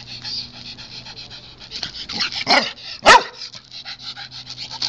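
Excited dog barking twice a little past the middle, the second bark the louder, over fast, steady panting.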